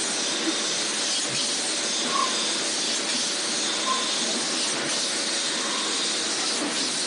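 Metal spinning machine running, its forming roller pressed against a metal pot blank turning on the mandrel: a steady hissing machine noise, with a couple of brief faint squeaks about two and four seconds in.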